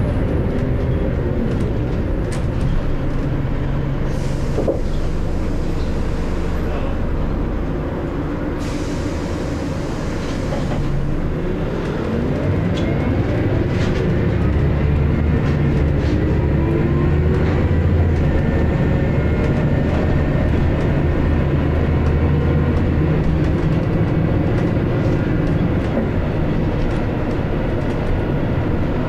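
Scania L94UB bus's diesel engine and ZF automatic gearbox heard from inside the saloon while under way, over road noise and small interior rattles. A few rising whines come a little before halfway in as the bus picks up speed.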